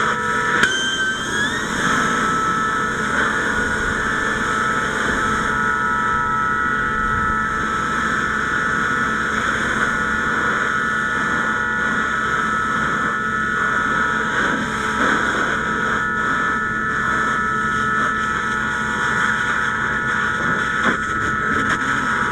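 Fire hose nozzle spraying a stream of water onto a burned-out vehicle: a steady loud rush with a high whine running through it. A short rising whine comes about a second in.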